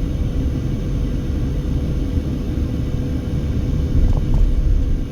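A car driving, heard from inside the cabin: a steady low rumble of road and engine noise, with a faint steady hum.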